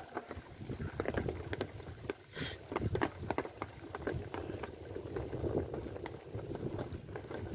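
Lake water lapping and splashing against the shore in many small irregular splashes.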